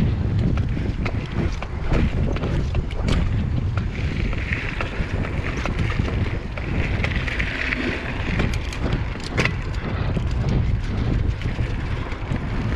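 Mountain bike rolling over dirt singletrack, heard from a camera on the rider: wind buffeting the microphone over a low tyre rumble, with frequent sharp clicks and rattles from the bike on bumps. A higher hiss swells for a few seconds in the middle.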